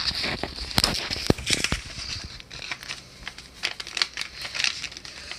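A sheet of A4 paper being folded and creased by hand: irregular crinkling and crackling with sharp clicks, busiest in the first two seconds.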